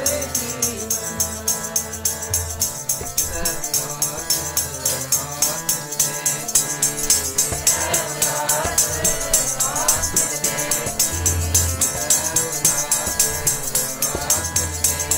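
Sikh keertan: voices singing a devotional hymn over sustained harmonium-like chords, with hand percussion keeping a fast, even jingling beat of about five strokes a second.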